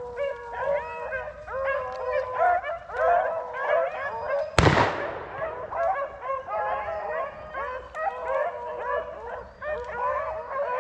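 Pack of beagles baying and howling together, many voices overlapping. About four and a half seconds in, a single loud shotgun blast rings out.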